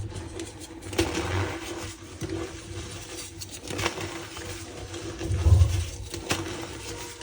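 Reformed gym chalk being crushed and squeezed by hand, crumbling with squeaks and scattered crisp crackles. Louder dull thuds come about a second in and again past the middle.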